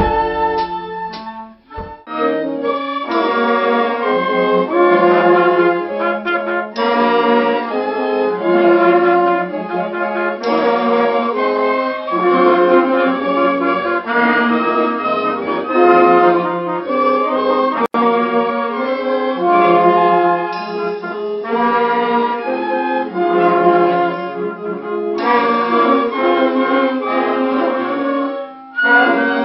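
A wind band with brass to the fore playing a piece together, held chords moving from note to note, with a brief break in the music about two seconds in.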